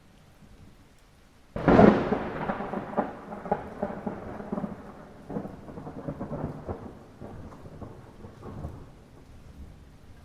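A sudden thunderclap about one and a half seconds in, crackling and rumbling as it fades away over several seconds, over faint steady rain.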